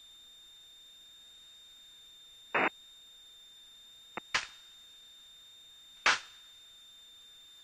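Headset intercom and radio feed in a light aircraft's cockpit with no one talking: a faint steady high whine, broken by four short clicks and brief bursts of static, like a radio being keyed, spread through it.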